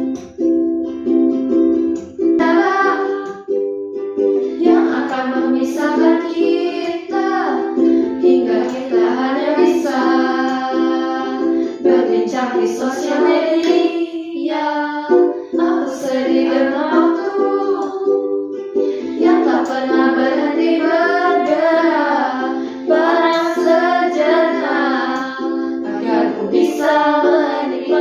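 A ukulele is strummed in chords while several young women sing together in Indonesian. The ukulele plays alone for the first couple of seconds before the voices come in.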